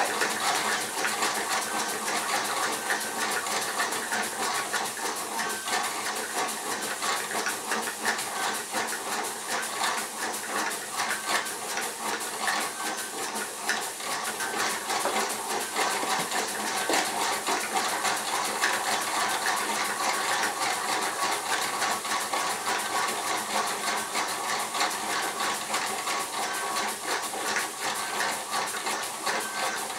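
Small model steam engine running at a fast, even beat, with the hiss of steam from its exhaust. It is running a little short of steam because the boiler is only just keeping up.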